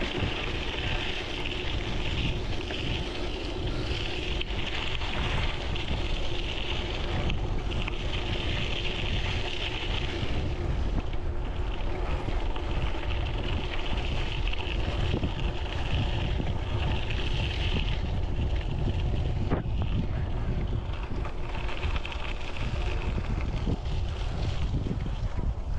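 Wind buffeting the microphone: a steady low rumble, with a higher hiss that swells and fades every few seconds.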